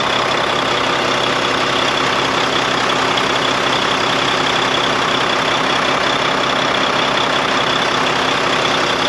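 Volvo D13 inline-six diesel in a Volvo VNL truck idling steadily, no longer surging up and down, with an even airy hiss and a faint steady high whine over it. The owner traces the windy hiss to a seal left out after repair work.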